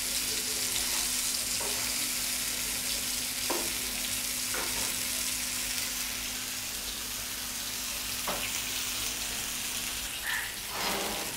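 Semolina- and rice-flour-coated lady fish shallow-frying in coconut oil over medium-low heat: a steady sizzle with a few faint crackles.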